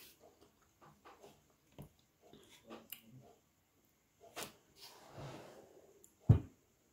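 Faint scattered clicks and rustles of a plate of fruit being handled, with one short low thump a little before the end.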